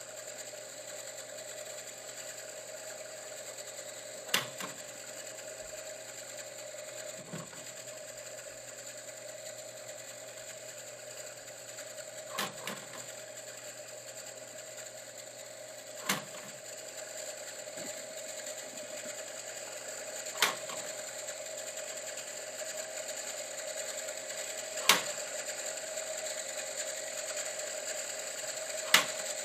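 Mechanism of an antique coin-operated Quartoscope arcade viewer running with a steady whir, and a sharp clack about every four seconds as the next picture card drops into view.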